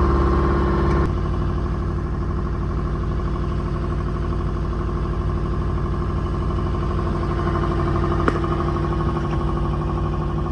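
Sailboat's engine running steadily under power, its note dropping a little about a second in as it is throttled back, with one sharp knock near the end.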